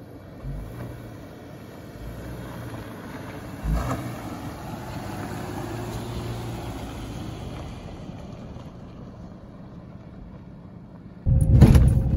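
Subaru crossover driving up a dirt trail past the microphone: engine and tyre noise building as it nears and easing off as it moves away, with one sharp knock about four seconds in. Near the end the sound jumps to much louder engine and road noise heard from inside a vehicle.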